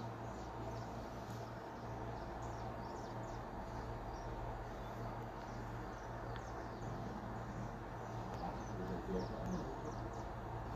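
Quiet background ambience: a steady low hum under scattered short, high-pitched chirps.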